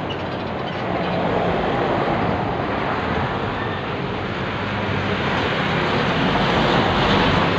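Steady road traffic noise: a continuous rushing with a low hum underneath.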